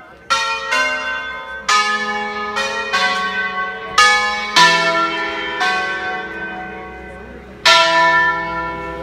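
Five church bells cast by De Poli in 1949, tuned in E major, rung by hand as a concert: about eight strokes of different pitches at uneven spacing, each left to ring on and fade.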